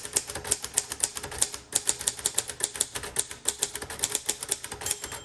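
Typing on a 1957 Royal Quiet Deluxe manual typewriter: a fast, steady run of sharp type-bar strikes. Near the end the end-of-line bell rings once, the sign that the carriage is nearing the right margin.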